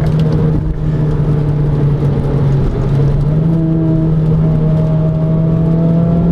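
Renault Clio 200's 2.0-litre four-cylinder engine heard from inside the cabin as the car is driven hard, with a steady drone over road rumble. Just before halfway its note dips briefly, then it settles a little higher.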